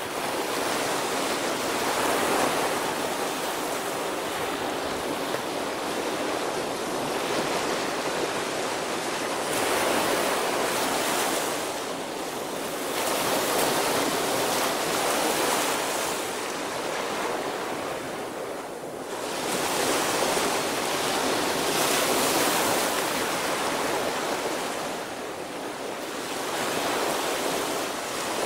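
Small waves breaking and washing up on a sandy beach, the surf swelling and fading every few seconds.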